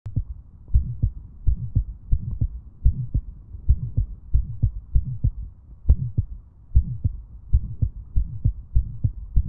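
Stethoscope recording of heart sounds: a steady rhythm of low heartbeats with a vibratory, buzzing systolic murmur, Still's innocent murmur.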